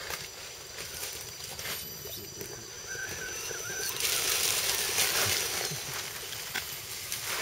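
Dry leaf litter crackling and rustling under the tyres of a 1:10 scale RC crawler as it climbs over logs, with scattered small clicks and a louder stretch of rustling about four to five and a half seconds in.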